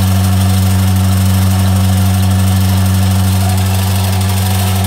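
Milking machine's electric vacuum pump running, a steady hum with an even hiss over it.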